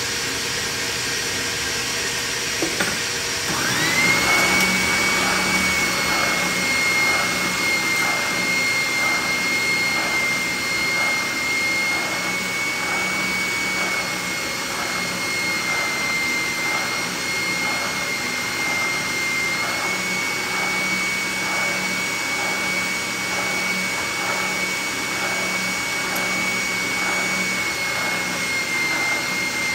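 A steady rushing of air from a shop vacuum hooked to a spindle sander. About three and a half seconds in, the sander switches on and spins up to a steady high whine with an even rhythmic pulsing.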